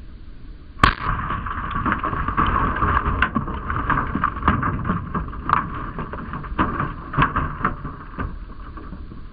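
A single loud shotgun blast about a second in, fired into an inkjet printer, followed by several seconds of crackling noise with many scattered sharp clicks.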